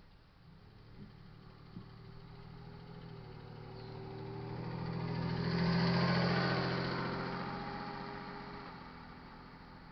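A car driving past on the road by the crossing, with engine and tyre noise growing to a peak about six seconds in and then fading away.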